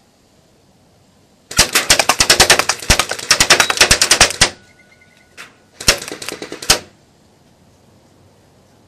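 Cybergun Thompson M1A1 airsoft electric gun firing full-auto in rapid shots: one burst of about three seconds, then after a short pause a second burst of about a second.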